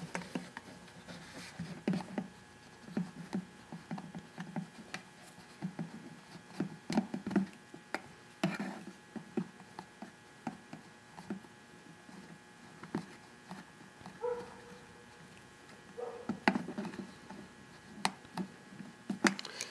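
Irregular light clicks, taps and rubbing from needle-nose pliers and fingers working a rubber fuel line through the grommet of a small plastic fuel tank.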